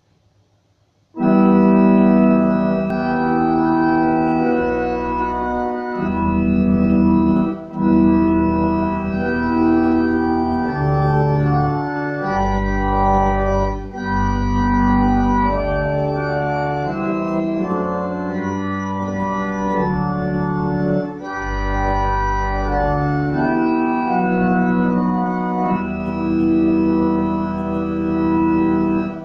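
Church organ playing a hymn in slow, sustained chords over deep pedal bass notes. It starts about a second in and stops just before the end.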